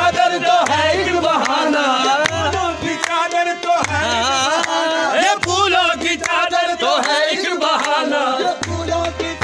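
Qawwali: a male voice sings a devotional song over low, recurring drumbeats.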